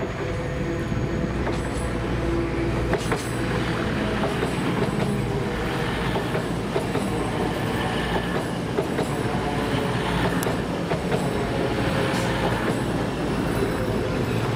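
Train moving along the tracks, its engine running steadily, with wheels clicking over rail joints at irregular intervals.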